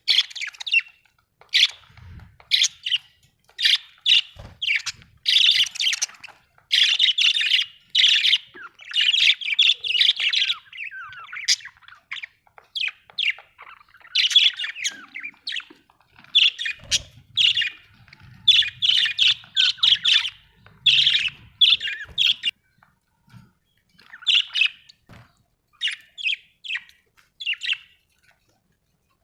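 Budgerigars chirping and warbling, a busy run of quick chirps, chatter and squawks that thins out a little near the end.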